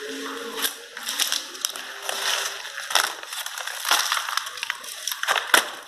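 Broken plaster and glass debris crunching and crackling. Irregular sharp cracks run through it, and the loudest comes about five and a half seconds in.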